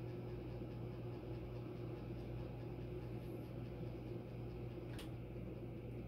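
Corbett Lighting Calcutta 36-inch ceiling fan running steadily: a low, even motor hum with soft air noise. A single sharp click about five seconds in.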